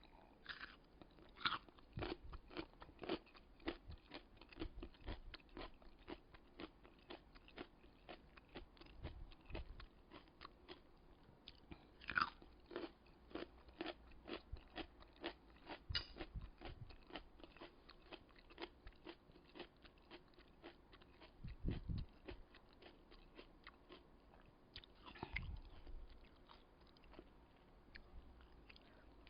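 Kkakdugi, cubed radish kimchi, being chewed close up: a run of short, irregular crisp crunches as the firm radish breaks between the teeth, with a few deeper, louder crunches about two-thirds of the way through.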